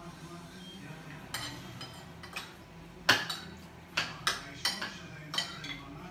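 Spoons and forks clinking and scraping against plates as people eat, a run of separate sharp clinks with the loudest about three seconds in.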